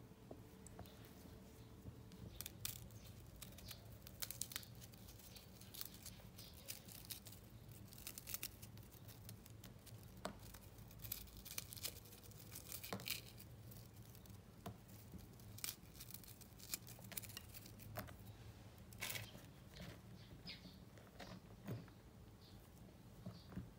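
Quiet, irregular cracks and crackles of chocolate sandwich cookies being snapped and crumbled by hand over a glass bowl, with a spatula scraping and folding through whipped cream filling in the glass.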